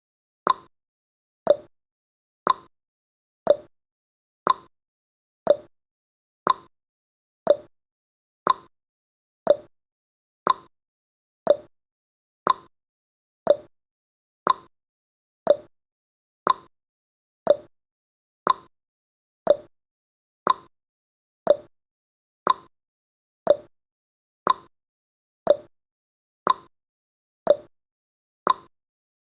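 Countdown timer sound effect ticking once a second: a short, sharp tick with a quick decay, separated by silence.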